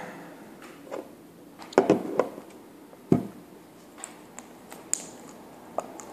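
Handling noises from a rebuildable vape atomizer and its box mod: a series of separate clicks and knocks, the loudest about two and three seconds in, with lighter ticks later.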